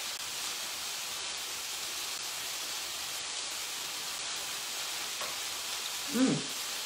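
Red onions and fennel sizzling steadily in a frying pan, with a short hummed "mmm" about six seconds in.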